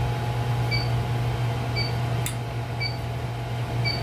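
Steady low machinery hum, with a short high electronic beep repeating about once a second and a single sharp click a little past the middle.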